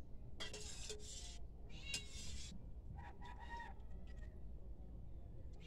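A cat meowing three times in quick succession.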